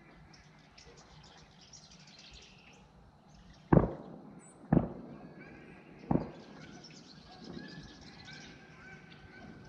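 Three gunshots, the second about a second after the first and the third about a second and a half later, each trailing off in a short echo.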